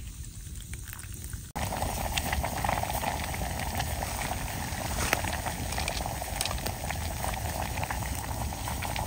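Water boiling in a metal mess tin over a campfire with eggs cooking in it: a dense, steady bubbling with many small crackles. It jumps louder at a sudden cut about one and a half seconds in.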